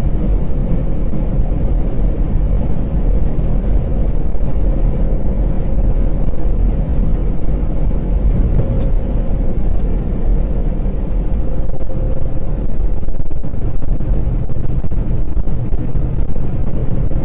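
Steady low rumble of a truck's engine and road noise, heard from inside the cab while it drives along the highway.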